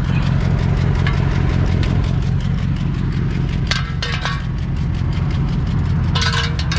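Infiniti Q45's V8 engine running steadily with a loud, even drone, a piece of its exhaust having fallen off. A couple of brief higher-pitched noises are heard about four and six seconds in.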